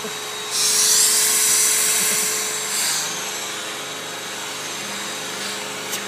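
Vacuum cleaner running, with air rushing through the hose's dusting-brush nozzle. The hiss of suction rises sharply about half a second in and eases back down over the next two seconds to a steady hum.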